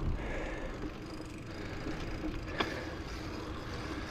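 Bicycle riding along an asphalt road: a steady rumble of tyres and wind, with one sharp click about two and a half seconds in.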